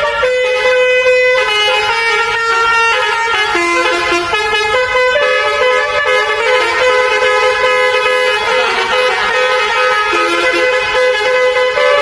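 A bus's 25-trumpet telolet basuri air horn playing a melody: several held notes sound together and step from pitch to pitch without a break.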